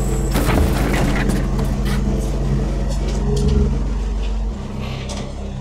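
Mini excavator's Kubota three-cylinder diesel engine running steadily, with bursts of clatter over it. Near the end the engine sound drops away under music.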